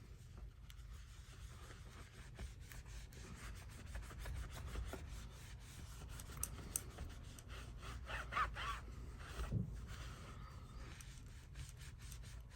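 Faint rubbing and scraping with small clicks as a phone and tools are handled on a workbench. A louder, slightly squeaky scrape comes about eight seconds in.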